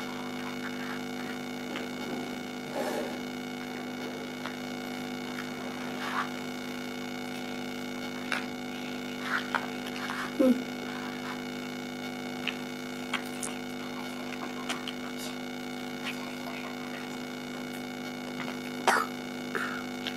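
Steady electrical mains hum, with scattered light clicks and clacks of plastic building blocks being pressed together and set down on the table. About halfway through there is a brief falling squeak.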